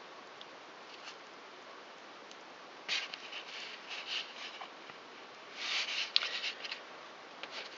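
Faint rustling and small clicks of bare fingers handling and pulling at a raw chicken drumstick, in short spells about three, four and six seconds in, over a steady low hiss.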